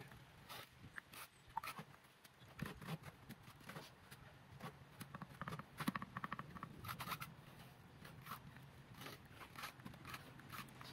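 Faint, scattered scrapes and clicks of hand bricklaying: a trowel working mortar and tapping bricks into place, with a quick run of light taps about five to seven seconds in.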